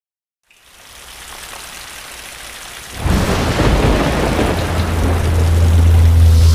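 Logo intro sound effects of a rainstorm: a steady rain hiss fades in, then about three seconds in a loud crash of thunder breaks, with a deep steady rumble under it that holds on.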